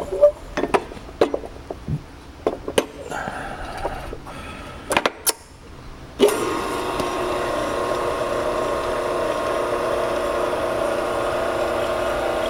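Scattered clicks and knocks for about six seconds, then the 1 HP electric motor of a Hoover muller pigment mixer starts abruptly and runs with a steady hum.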